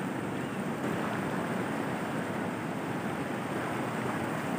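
Steady rush of a fast-flowing river in flood.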